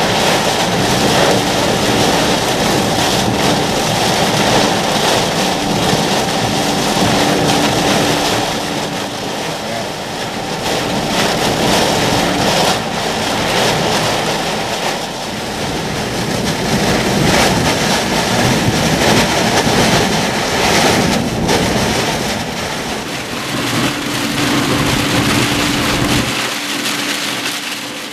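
Hurricane wind and heavy driving rain, a constant loud rush of wind and rain heard from a moving vehicle, with a faint steady hum that comes and goes. The low rumble drops away near the end.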